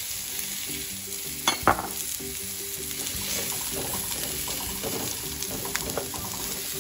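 Sliced onions sizzling in hot oil in a frying pan as they start to brown, stirred with silicone tongs, with small ticks from the stirring. There are two sharp knocks about one and a half seconds in.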